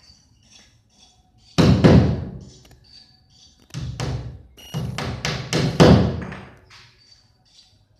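Heavy thuds and knocks: one strike, then after a pause a quick run of about six more, each ringing out briefly.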